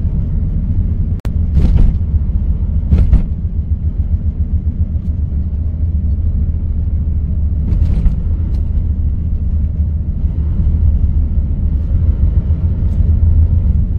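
Steady low rumble of a Hyundai Starex camper van driving, heard from inside its cabin, with a few brief louder bumps.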